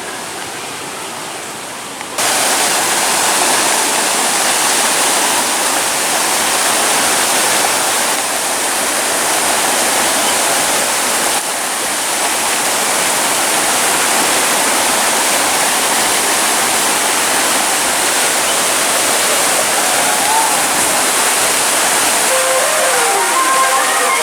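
A steady, loud rushing noise that starts abruptly about two seconds in. Faint sliding tones appear near the end.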